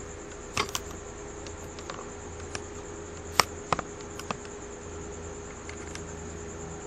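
Handling noise: a few light clicks and taps as the cylinder head is moved about for a close look, the loudest about three and a half seconds in, over a steady faint high whine and a low hum.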